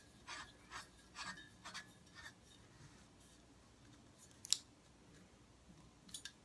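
A Bernzomatic TS8000 torch being screwed by hand onto a camp propane cylinder: faint rasping strokes of the threads turning, about two a second for the first two seconds, then a single sharp click about four and a half seconds in.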